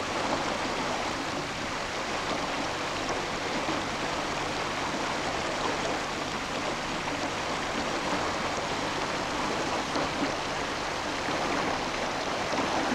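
A small river running: a steady, even rush of flowing water.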